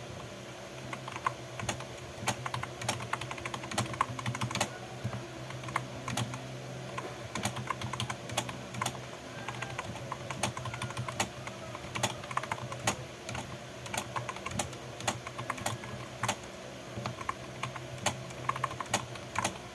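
Typing on a Logitech K120 membrane keyboard: irregular key clicks, several a second, over a steady low hum.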